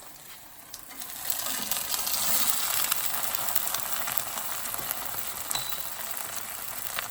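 Buttered sandwiches frying in a hot, thick-based pan, sizzling steadily. The sizzle grows louder about a second in.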